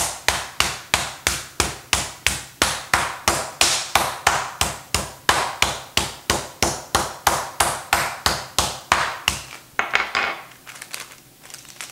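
Rapid, steady blows pounding a chicken breast flat between sheets of parchment paper, about three to four strikes a second. The pounding stops about ten seconds in, and a few softer handling sounds follow.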